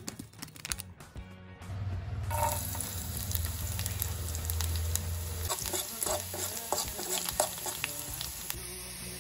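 Chopped garlic sizzling in hot oil in a steel pan, starting about two seconds in, a steady hiss with small pops: garlic oil being made to pour over chilli powder and spices.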